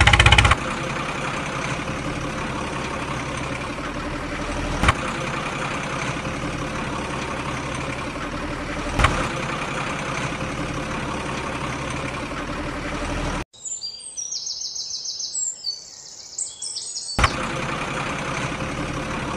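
A steady engine idling drone with a couple of sharp clicks. About two-thirds of the way in it cuts out for a few seconds and is replaced by high, repeated chirping tones, then the drone returns.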